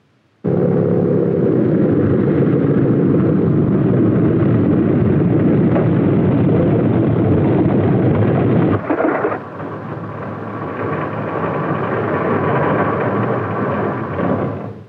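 Piston engine of a 1920s biplane running loud and steady with a rough rumble. About nine seconds in it cuts to a thinner engine sound with a steady whine, which grows louder and then falls away near the end.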